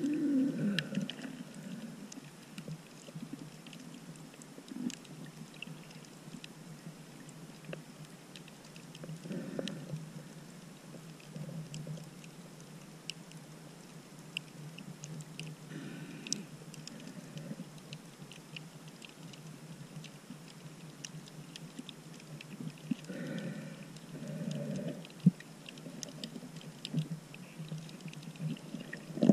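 Underwater ambience on a shallow coral reef, heard by a submerged camera: a steady muffled hiss with scattered faint clicks, and four louder muffled whooshes, roughly every seven seconds.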